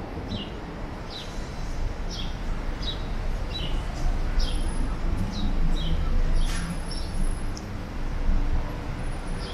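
A small bird chirping over and over, each call a short falling note, about one or two a second, over the steady low rumble of city street traffic.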